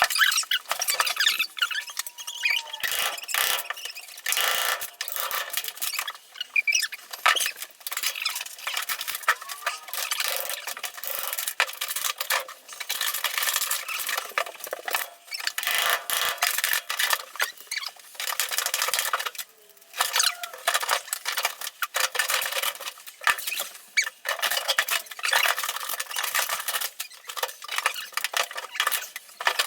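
Demolition work: continuous scraping and clattering of building material being pried and pulled loose, with dense rattles and a few short squeaks.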